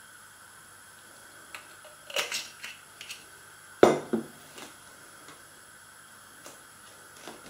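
Kitchen handling noises: a scattered series of light clicks, with one sharper knock about four seconds in, over a faint steady background hum.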